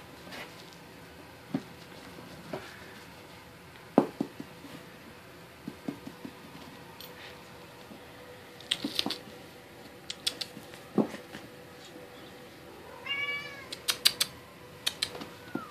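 Bengal kittens at play: scattered light knocks and clicks, and about thirteen seconds in a short, high-pitched kitten mew, with a second brief mew near the end.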